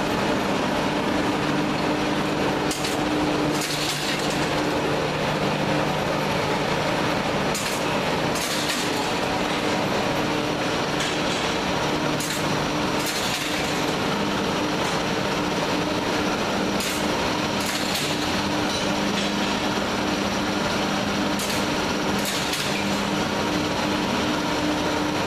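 Clay-brick production machinery running with a steady multi-tone hum, with scattered sharp knocks and clacks as bricks are handled and stacked.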